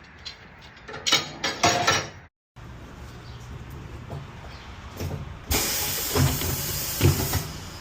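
Compressed air hissing loudly for about two seconds as air is blown into the motorcycle tire, over a steady low hum. Clattering knocks of tool work come about a second in, before a brief cut in the sound.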